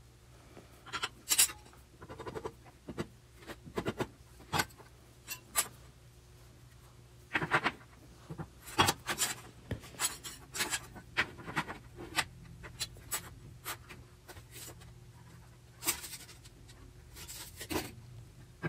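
Irregular knocks, clicks and clatter of 2x4 pieces, bar clamps and a metal square being handled and set down on a steel-topped workbench.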